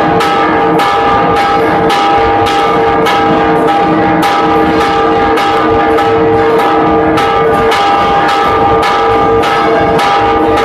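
Cathedral bronze church bells rung in a fast repique, a rope-pulled clapper striking about three times a second over a continuous ringing hum, heard close up inside the bell tower. The ringing is the first call (primera llamada) to Mass.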